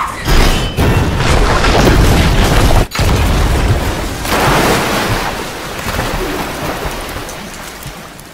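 Animated sound effects of a heavy crash into water: a loud splashing impact, then water rushing and spraying down like heavy rain. It cuts out for an instant about three seconds in, then goes on and slowly fades.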